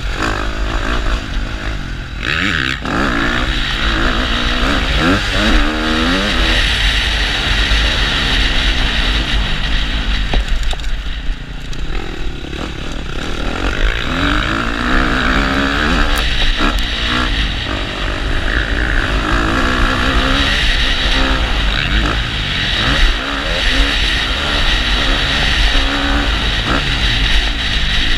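Motocross dirt bike engine ridden hard on the track, the revs rising and falling again and again as the rider accelerates, shifts and backs off, with a steady rushing noise over it.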